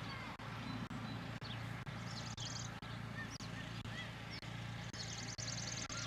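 Riding lawnmower engine running with a steady low hum, with short high chirps over it and a high buzzing that comes in briefly about two seconds in and again near the end.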